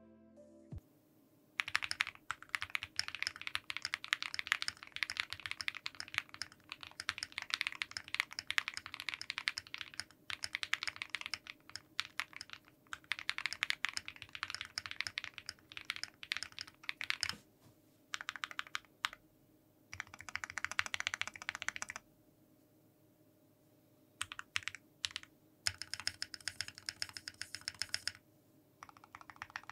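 Typing sound test on a Zoo65 aluminium mechanical keyboard with lubed and filmed KTT Halu Halo linear switches, an FR4 plate, lubed Wuque stabilizers, PBT Notion keycaps and case, PCB and PE foam all installed. Keystrokes come in fast flurries starting about a second and a half in, with a few short pauses.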